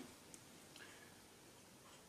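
Near silence: room tone with a faint tick.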